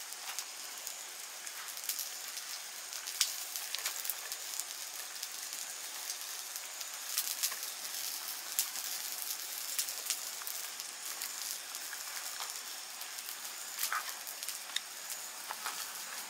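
Light rain pattering on the campsite tent and tarp: a steady hiss sprinkled with many small, sharp drop ticks.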